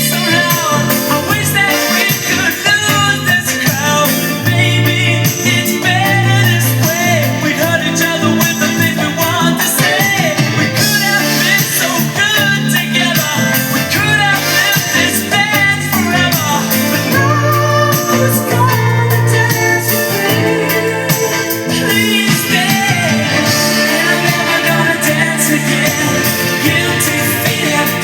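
A pop song with a singing voice over guitar and a steady bass line, played on a hi-fi system.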